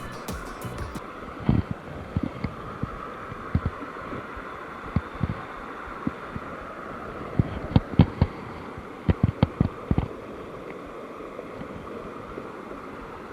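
Steady rush of river water with irregular low thumps, bunched into a run of several in the last third.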